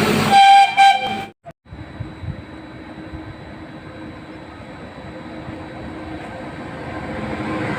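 Indian express train's horn sounding one loud, steady note for about a second, then the low rumble of an approaching train growing steadily louder.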